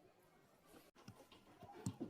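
Near silence: room tone, with a few faint soft knocks in the second half.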